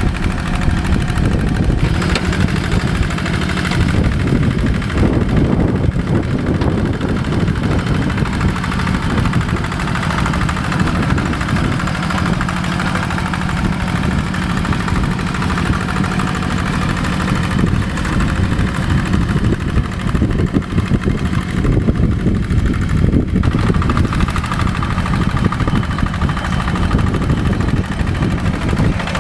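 Diesel engine of a rice-paddy tractor running steadily and loud, with a dense rapid chugging.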